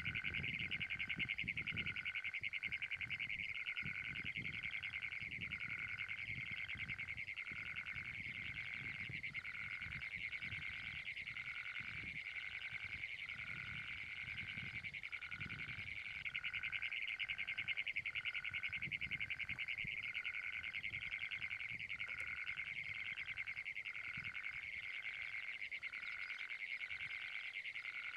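Great Plains toad calling: one long, rapid, unbroken trill, with a short break about halfway through before it carries on. A lower note repeats about once a second behind it.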